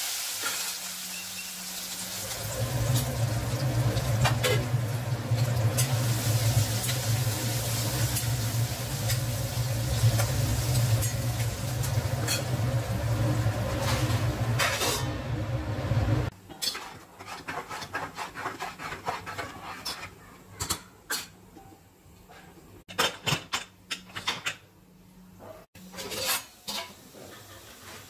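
Diced potatoes sizzling in oil in a steel kadai while a steel spoon stirs and scrapes the pan. A steady low hum runs under it from about two seconds in and cuts off suddenly a little past halfway. After that the sizzling is quieter, broken by sharp clinks of steel utensils.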